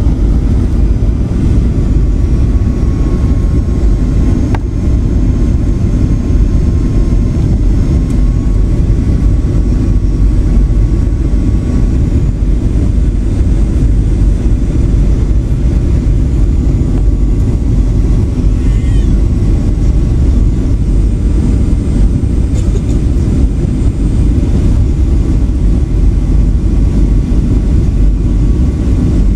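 Boeing 737 cabin noise on final approach: a loud, steady rumble of engines and rushing air heard from inside the passenger cabin, with faint high whining tones over it.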